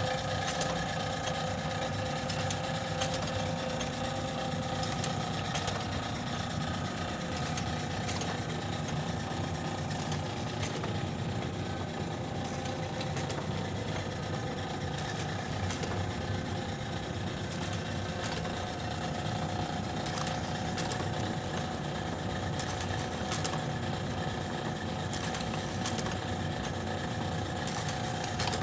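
Cozzoli FPS2 automatic ampoule filler and flame sealer running under power: a steady motor hum with several held tones, and light mechanical clicks at irregular intervals.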